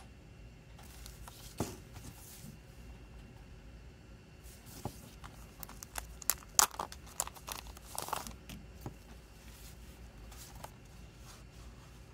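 Plastic shrink-wrap being torn and peeled off a CD case, crinkling. Scattered crinkles start about a second in, then a dense run of sharp crackling comes from about five to eight and a half seconds in, before it settles into quieter handling.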